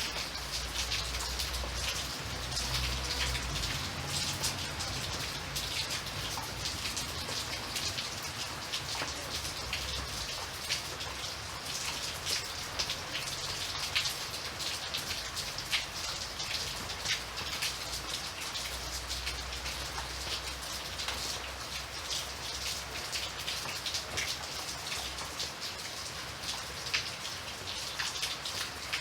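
Steady rain, with many separate drops heard as sharp ticks over an even hiss. A low rumble sits under it in the first few seconds and again past the middle.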